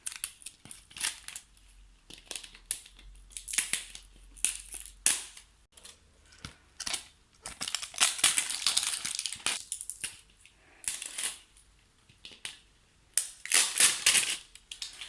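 Crinkly plastic wrapping crackling and crumpling as the layers are peeled off a toy surprise ball. The crackling comes in irregular bursts, heaviest about halfway through and again near the end.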